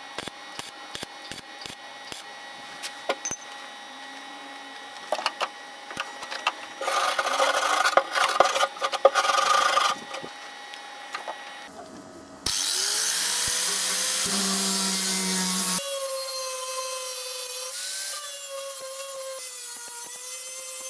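Metalworking sounds: scattered light clicks and taps, then a harsh rasping burst of a few seconds. About twelve seconds in, an electric power tool starts suddenly and spins up, then runs steadily with its pitch wavering under load.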